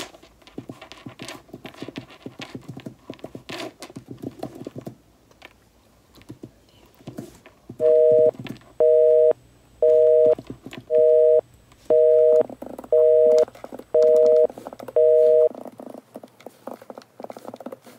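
Quick clicking of a computer keyboard being typed on for about five seconds. After a short pause comes a telephone busy signal: eight even two-tone beeps, about one a second, louder than the typing.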